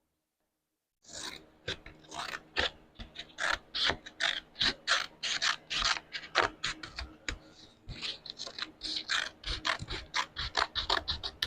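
A hand tool working on material in quick, uneven strokes, about two to four a second, each a short, sharp rasping click. The strokes start about a second in.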